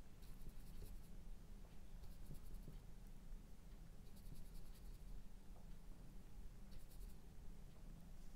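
Flat brush loaded with oil paint scrubbing and dabbing on a textured canvas panel: faint scratchy brushing in four short spells of about a second each, over a low steady hum.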